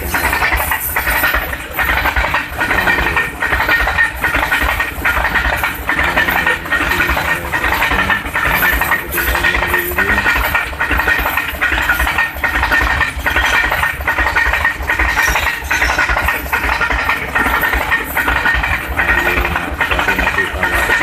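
A long freight train of tank and covered wagons rolling past close by. The wheels click over the rail joints at a steady rhythm above a continuous rumble, with a thin high ringing tone.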